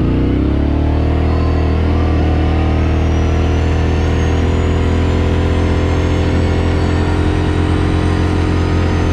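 Kawasaki Brute Force 750 ATV's V-twin engine under way, rising in pitch in the first second as it speeds up, then running steady at cruising speed.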